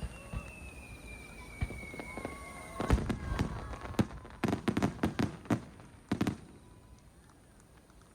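Aerial fireworks: a thin whistle sliding slowly down in pitch for about three seconds, then a quick run of sharp bangs and crackles for about three seconds, which then dies away.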